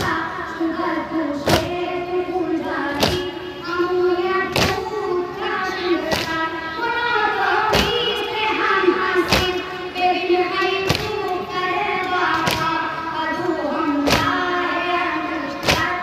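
A boy chanting a noha, a Shia lament, through a microphone, over the crowd's matam: a unison thump of hands beaten on chests about every second and a half, keeping the beat of the chant.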